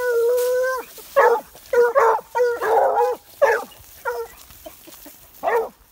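A dog yelping: one long, high whine held for almost a second, then a string of short yelps.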